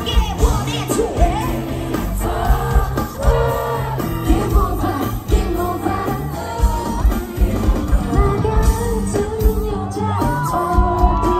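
Live pop music: a female singer sings over a band with a steady drum beat, amplified through a festival PA.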